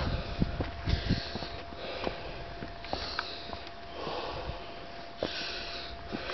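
Heavy, hard breathing of a hiker close to the microphone while climbing a steep trail, a breath about once a second, from the strain of the climb. Small scuffs and taps of footsteps on rock come in between.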